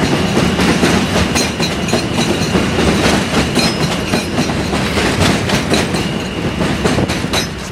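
Elevated New York subway train (an M train) running past on the steel el structure, with a rapid clatter of wheels over rail joints, easing off near the end.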